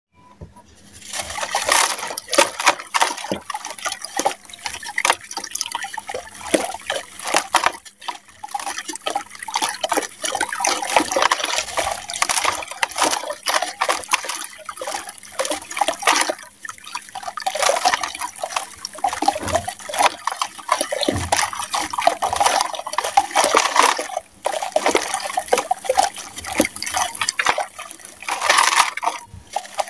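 Sand-cement blocks crumbled and squeezed by hand into a basin of water: dense wet crunching and crackling with splashing and dripping, starting about a second in and going on with a few brief pauses.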